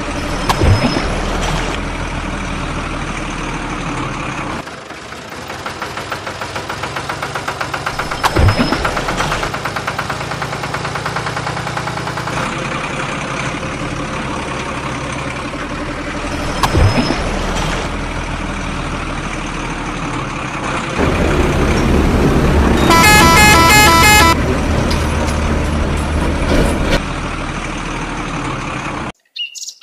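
Truck engine sound running steadily, swelling louder about every eight seconds. About two-thirds of the way through, a multi-tone horn honks in quick pulses over a louder stretch of engine. The sound cuts out abruptly just before the end.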